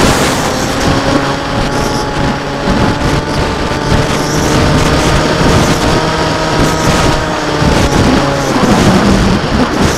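Electric motor and propeller of an FPV model aircraft whining steadily, recorded by its onboard camera, over heavy wind rush on the microphone. The motor tone fades out near the end, leaving the wind.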